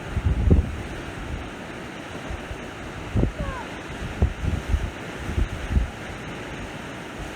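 Sea waves washing on the shore in a steady wash of noise, with wind gusting on the microphone as repeated low rumbles.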